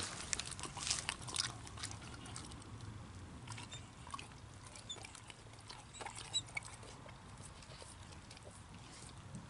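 Faint scattered clicks and small noises from a German wirehaired pointer puppy moving about and nosing at paving stones, busier in the first few seconds.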